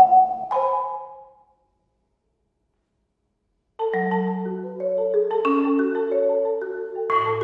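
Solo marimba played with four mallets: a few struck notes ring and die away in the first second or so. After a full pause of about two seconds, playing resumes with long rolled chords, and a deep bass note enters near the end.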